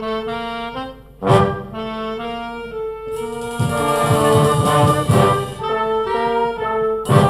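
A brass band playing held, melodic notes on horns, with a cymbal crash and drum hit about a second in and a ringing cymbal wash through the middle.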